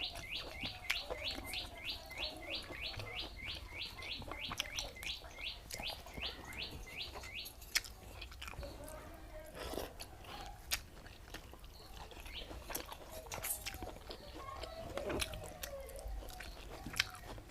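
A person chewing and eating pakhala, wet rice in water, with soft smacks and clicks. Over it a bird chirps rapidly and evenly, about five high chirps a second, stopping about seven seconds in.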